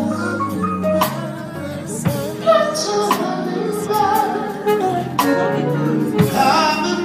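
Live band playing a soul ballad while a singer holds and bends long wordless vocal runs, with sharp drum hits landing about once a second.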